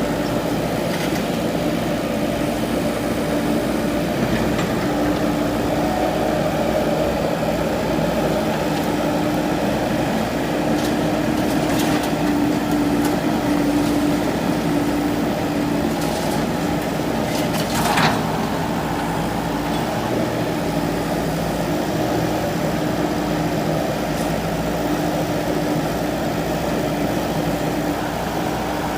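JCB 3DX backhoe loader's diesel engine running steadily, with a few sharp knocks, the loudest about eighteen seconds in.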